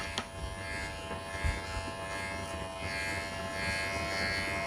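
Cordless electric pet clipper running with a steady motor hum as it shears a long-haired cat's fur.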